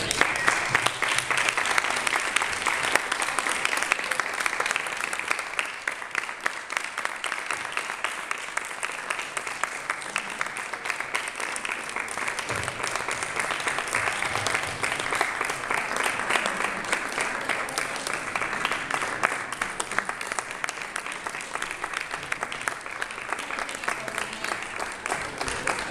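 Audience applauding in a hall. The clapping starts all at once and carries on, a little softer after about six seconds.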